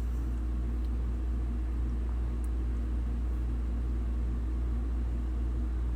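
Steady low rumble with a faint hum of a few low tones, unchanging throughout.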